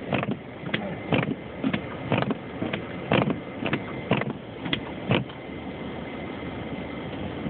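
Car cabin noise while driving in a snowstorm: a steady rush of road and wind noise, with sharp regular knocks about twice a second that stop about five seconds in.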